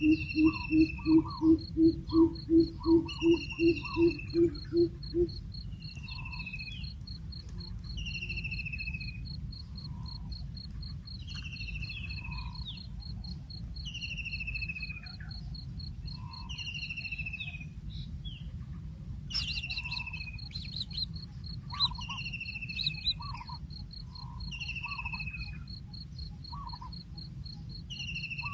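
Birds calling over a steady high insect trill, like a cricket. For the first five seconds a deep hoot repeats about three times a second and is the loudest sound; then it stops. Short whistled notes that slide downward come every second or two throughout.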